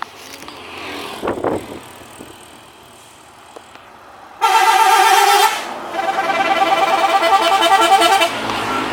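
Bus's musical 'telolet' horn: a long held note about four and a half seconds in, then after a brief pause a fast run of alternating notes playing a tune for about two seconds.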